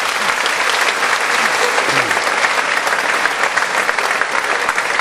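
Large audience applauding, a dense, steady clapping that holds at full strength.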